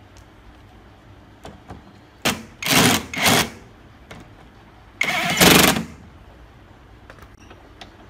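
Cordless impact driver running in four short bursts, the last and longest about a second, as it drives the bolts that fasten a metal hinge bracket to a refrigerator cabinet. A few light clicks of parts being handled come before and after.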